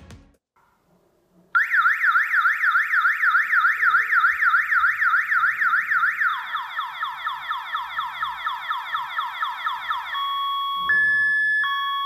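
Electronic horn siren of a PIR motion-sensor alarm starting up and sounding loudly. It wails in fast up-and-down sweeps, switches about six seconds in to quick repeated falling sweeps, then near the end to a hi-lo two-tone pattern.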